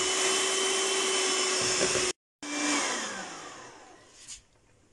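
Electric hand mixer running at speed, whipping a thick condensed-milk and butter cream. After a short break about two seconds in, it is switched off and winds down, its whine falling in pitch as it fades out.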